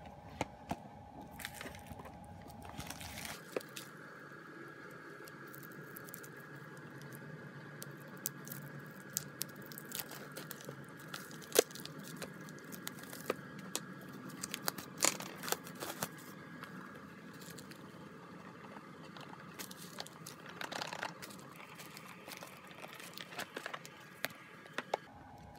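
Plastic shrink wrap being torn open and peeled off a CD album: irregular crinkling and crackling with a few sharper snaps.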